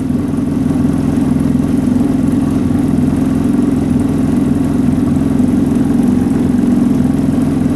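Engine idling steadily through a factory muffler whose catalytic converter has been chipped and drilled out, leaving a noisier exhaust note.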